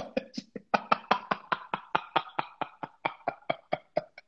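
A man laughing hard in a long run of quick, evenly spaced 'ha' pulses, about five or six a second.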